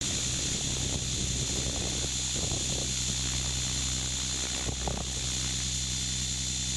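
Drone's electric motors and propellers running at a steady hover-like drone, a constant whine made of several steady tones from low to high, heard on the drone's own microphone.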